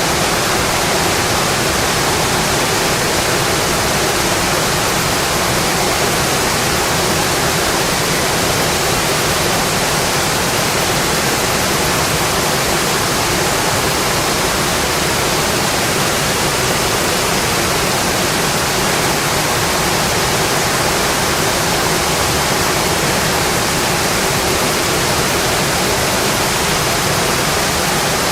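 Steady rainfall: a continuous even hiss with no separate drops standing out and no change in level.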